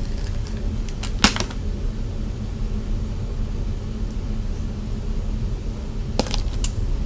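Steady low hum of room noise with a few short, sharp clicks about a second in and again near the end.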